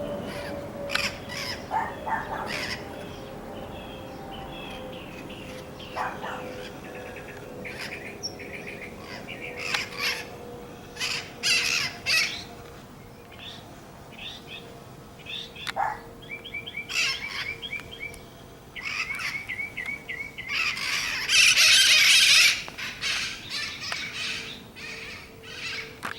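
Flock of wild parrots calling: harsh, raspy calls in scattered bouts, with a loud, dense burst of calls about three-quarters of the way through.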